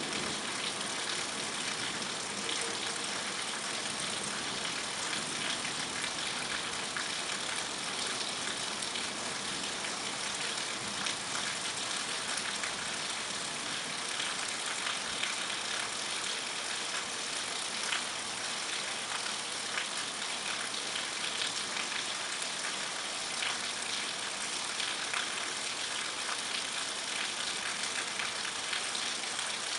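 Steady rain falling: an even hiss with faint ticks of individual drops.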